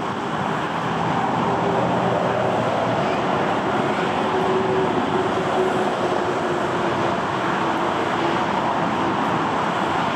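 Airbus A330 jet engines running at low power as the airliner taxis, a steady rushing noise with a faint humming tone under it.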